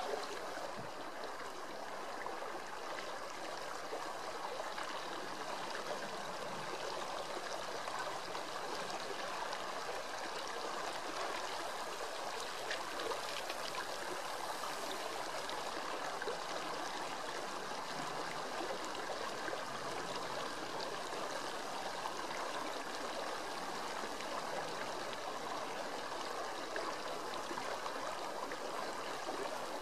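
Shallow stream rippling steadily over a gravel bed.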